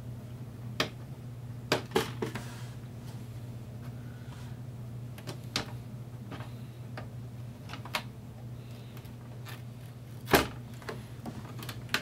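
Scattered small clicks and knocks of a laptop's plastic case and circuit board being handled as the motherboard is worked loose, the loudest knock about ten seconds in. A steady low hum runs underneath.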